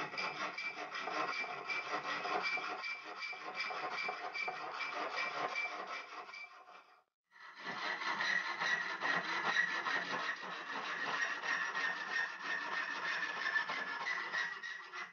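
Hacksaw cutting through a 4 mm steel flat bar clamped in a vise, steady back-and-forth rasping strokes of the blade on the metal. It breaks off briefly about seven seconds in, then carries on.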